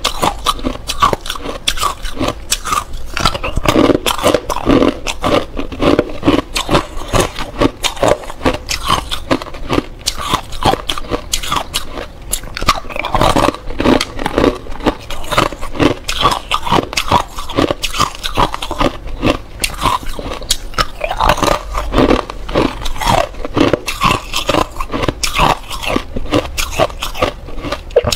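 Close-miked biting and chewing of clear ice cubes: a continuous run of sharp cracks and crunches as the ice breaks between the teeth.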